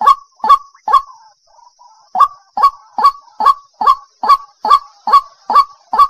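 White-breasted waterhen calling: a run of short, loud, repeated call notes, about two to three a second, broken by a pause of about a second near the start before the series picks up again.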